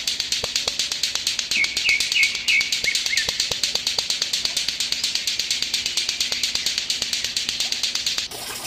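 Lato-lato clackers: two hard plastic balls on a string swung up and down so they knock together in a rapid, even clacking, several clacks a second, which stops shortly before the end.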